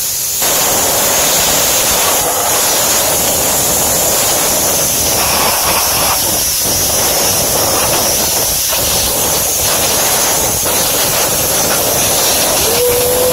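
Nitrogen blasting from a hose nozzle to blow dirt out of a gas-fired unit heater: a loud, steady hiss that starts about half a second in.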